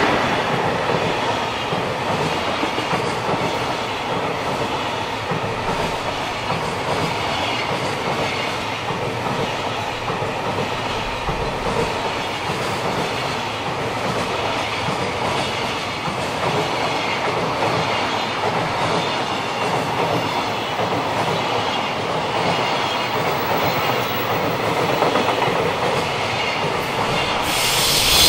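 Container wagons of a freight train rolling past close by: a steady rumble of steel wheels on rail with a rhythmic clickety-clack at the rail joints. A brief louder rush comes right at the end.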